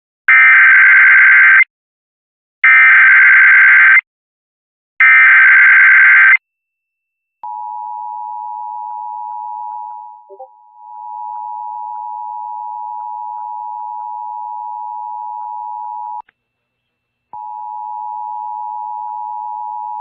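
Emergency Alert System activation: three loud bursts of the SAME digital header data, each about a second and a half long with short gaps between them. These are followed by the steady two-tone EAS attention signal, a continuous dual tone that breaks off for about a second near the end and then resumes.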